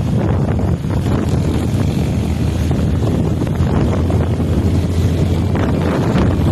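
Wind buffeting the microphone on a moving small motorcycle, with the engine's steady drone underneath.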